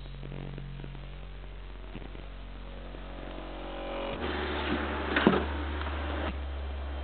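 Deep, sustained bass tones from a car stereo's two 12-inch subwoofers driven by a Kicker amp. The note changes abruptly about four seconds in to a stronger, lower drone, with a single knock shortly after.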